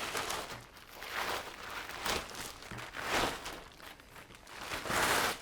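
A series of scuffing, crunching noises, about one a second, each swelling and fading within a fraction of a second.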